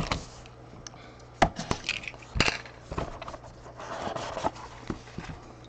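Packaging of a trading-card box being handled and opened: a series of sharp clicks and knocks with a brief rustle about four seconds in.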